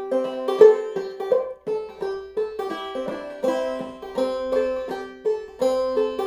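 Five-string banjo played clawhammer style in open C tuning (gCGCE), played gently: a steady run of plucked notes, each struck sharply and left to ring, as an old-time fiddle tune.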